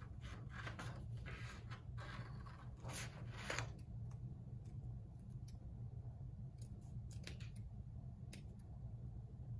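Scissors snipping through folded construction paper: a quick run of snips in the first few seconds, then scattered single snips.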